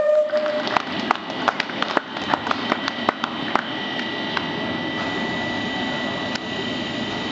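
Scattered clapping thinning out over the first few seconds, then a steady hiss of steam escaping from a steam tank locomotive, with a few faint steady high tones in it.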